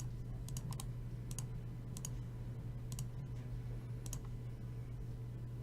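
Faint computer mouse clicks, scattered single and quick double clicks, over a steady low electrical hum.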